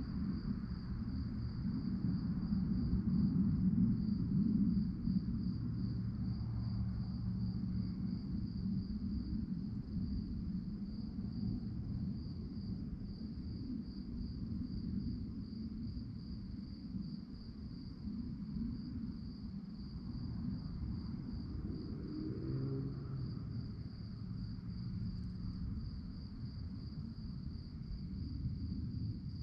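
Crickets chirping in a steady, fast pulsing trill, over a low continuous rumble.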